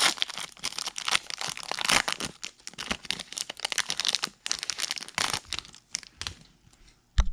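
Crinkly wrapper of an Upper Deck hockey card pack being torn open and crumpled: a dense run of crackling for about six seconds, then quiet, and one short knock near the end.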